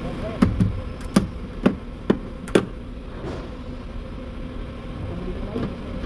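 Window trim seal on a car's front door being pulled off the door frame by hand: a quick run of seven or eight sharp clicks and snaps in the first three seconds, over a steady shop hum.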